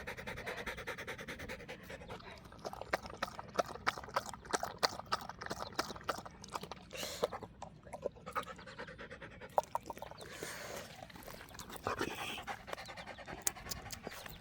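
Dog panting, with a run of quick, irregular lapping clicks in the middle as it drinks water.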